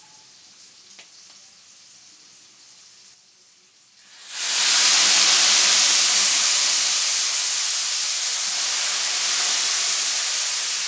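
Dry red wine spooned into a hot stainless steel skillet of sautéed mushrooms and bacon, breaking into a sudden loud, steady sizzle about four seconds in that eases a little toward the end.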